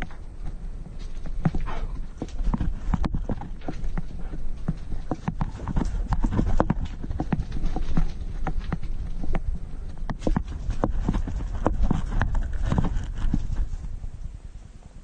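Irregular clatter and knocks of a dog moving over a rocky cave floor, picked up by a camera strapped to its back, over a steady low rumble of rubbing and handling noise. It dies down near the end.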